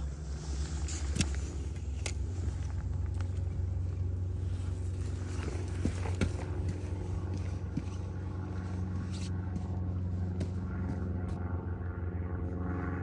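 A steady low rumble with a few sharp clicks and knocks scattered through it.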